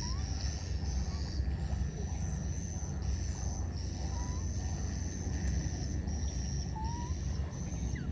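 Insects buzzing in a high drone that comes in pulses of about a second, over a steady low rumble. A few short, faint rising squeaks sound now and then.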